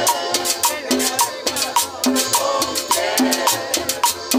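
Live cumbia played by a small band, with drums and cymbal keeping a steady, quick beat under a bass line and a melody.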